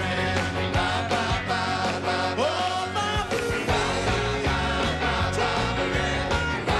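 Rock-and-roll band playing with a steady drum beat and singing voices.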